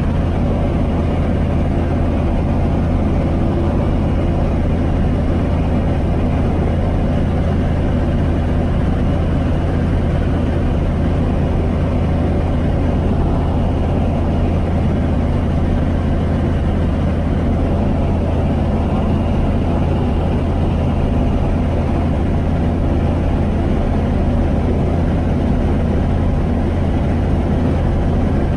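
Apollo Fox ultralight aircraft's piston engine and propeller droning steadily in level cruise, heard from inside the cockpit.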